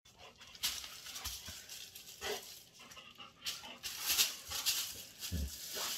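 Golden retriever excited at being shown its leash: short, irregular bursts of rustling, scuffling and breathing as the dog moves about.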